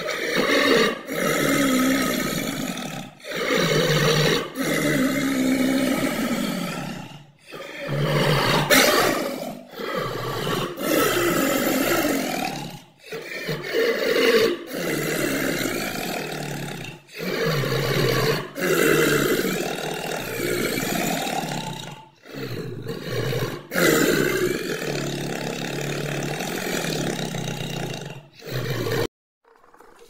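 Leopard growling and roaring in a long run of calls, each a second or two long, with short breaks between them. The calls stop abruptly about a second before the end.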